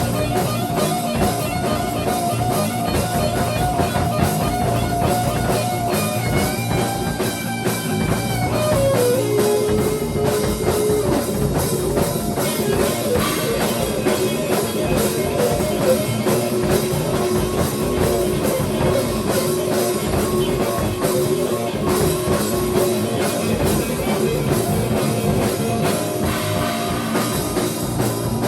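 Instrumental rock jam: a drum kit played steadily under guitar holding long sustained notes, which slide down to a lower note about nine seconds in.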